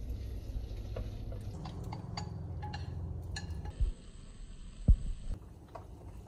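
Kitchen utensils and dishes being handled: scattered light clicks and clinks, a few ringing briefly, over a low hum. Two dull thumps come near the middle, the second, about five seconds in, the loudest, and the hum stops soon after.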